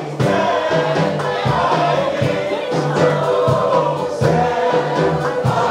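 A live jazz band plays with a voice singing over a line of repeated bass notes.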